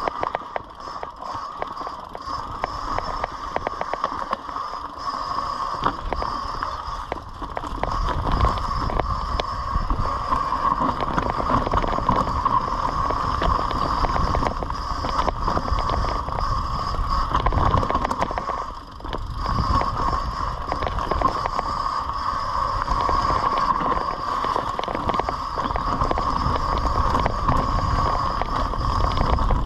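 Mountain bike descending a dirt singletrack strewn with dry leaves: tyres rolling and crunching over the ground and the bike rattling over bumps, a steady noise that grows louder about a quarter of the way in and dips briefly about two-thirds through.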